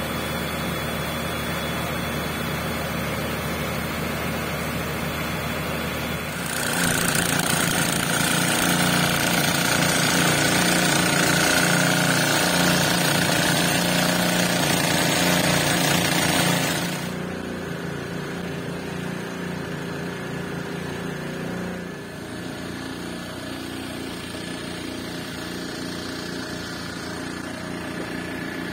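A fire engine's motor running steadily to drive its pump, drawing flood water out through hoses. About six seconds in, a loud rushing hiss rises over the drone; after about ten seconds it drops back to a quieter steady hum.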